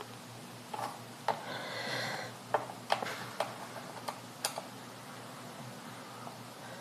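Scattered sharp clicks and ticks, with a short scrape about a second and a half in, from hands and tools working on a laptop's plastic case while opening it up.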